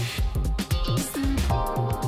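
Background music with a steady beat: electronic-style track with heavy bass and drums.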